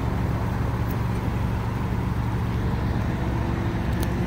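Steady low drone of diesel locomotive engines on an approaching freight train, with a faint higher tone joining about three seconds in.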